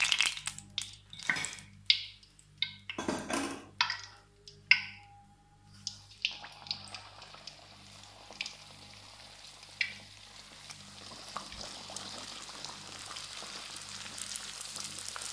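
A few seconds of scattered knocks and clatters, then the steady sizzle of chicken-stuffed dough donuts deep-frying in hot oil in a wok. The sizzle slowly grows louder.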